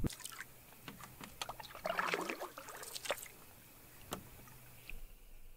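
Canoe paddle strokes through calm water: quiet swishes and drips, with a few light knocks of the paddle, one sharp knock about four seconds in.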